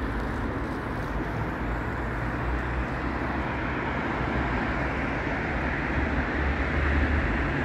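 Street traffic noise: a steady hum of road vehicles, growing a little louder with a deeper rumble near the end.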